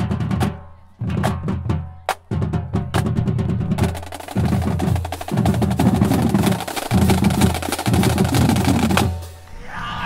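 Drum-heavy music: rapid snare strokes and rolls over a low, steady bass, stopping about nine seconds in.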